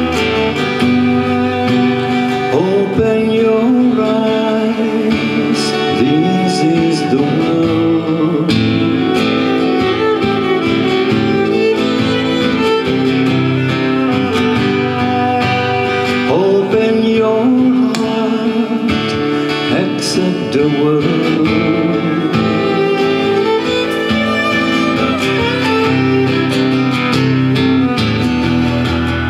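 Acoustic guitar and violin playing together live, the violin carrying the melody with some sliding notes over the guitar: an instrumental passage between sung verses.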